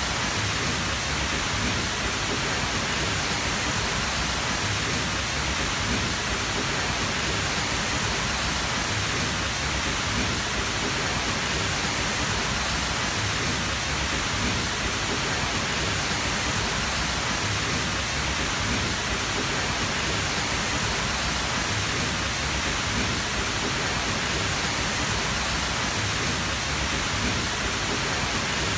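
Tall waterfall's rushing water, a steady dense roar with no change.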